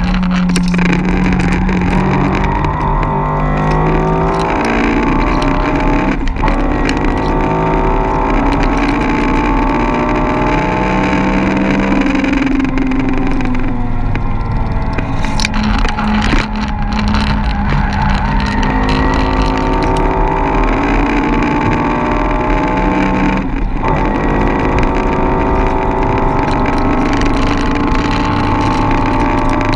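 Hot hatchback's engine heard from inside the cabin under hard driving, the pitch climbing steadily and dropping sharply at each gear change several times, over tyre and wind noise.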